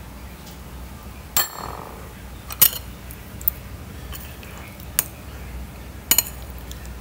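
Metal spoon and serving utensils clinking against ceramic plates and bowls: about six separate sharp clinks, the first ringing briefly and the last a quick double.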